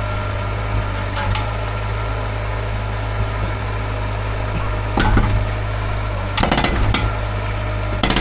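An engine runs steadily at idle, and metal tools clank and clink against concrete a few times in the second half, with the loudest cluster about six and a half seconds in.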